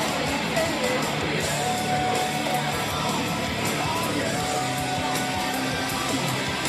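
Rock music with a strummed electric guitar, played over a PA system.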